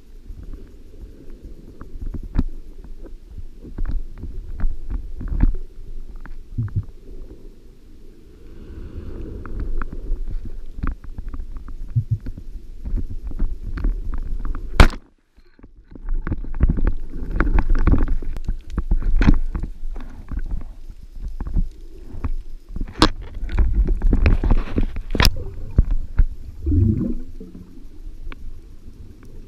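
Muffled water rumbling and sloshing against a camera in the water, with scattered sharp clicks and knocks. The sound cuts out for about a second near the middle.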